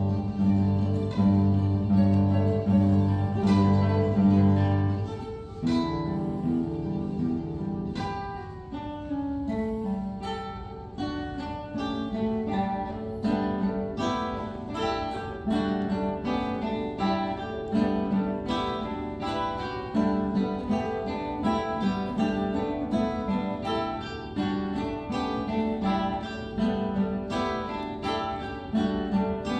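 A classical guitar quartet playing: a repeated low bass figure pulses for about the first five seconds, the playing thins out and grows quieter a few seconds later, then builds into a dense stream of quick plucked notes.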